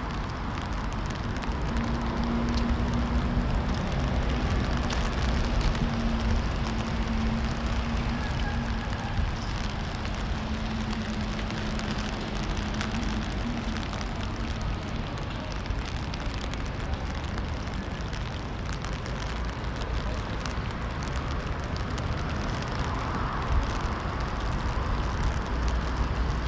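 Rain falling on wet paving: a steady hiss with a deep rumble beneath it. A steady low hum runs through it from about two seconds in for roughly twelve seconds.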